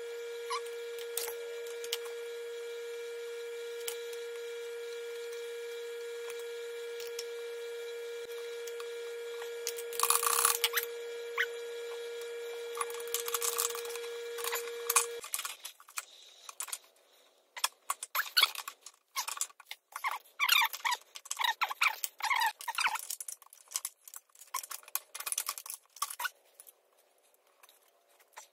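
Irregular clinks, taps and scrapes of steel brake parts being handled and fitted into the open steering-brake housing of a John Deere 450 dozer, thickest through the second half. Before that a steady hum runs and cuts off suddenly about halfway through.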